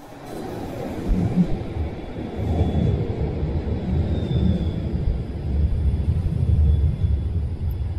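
Bombardier Flexity Outlook low-floor tram rumbling steadily as it runs into an underground station platform and slows alongside it, with a faint short squeal about four seconds in.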